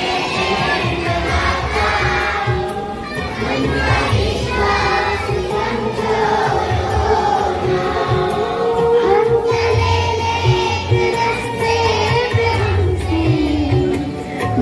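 A group of children singing a devotional prayer together over instrumental music with a steady low beat.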